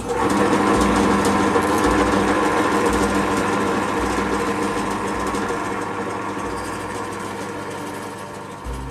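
Bench drill press motor switching on and running steadily with a fixed-pitch hum, its bit drilling into a plywood table; it starts suddenly and fades slowly toward the end.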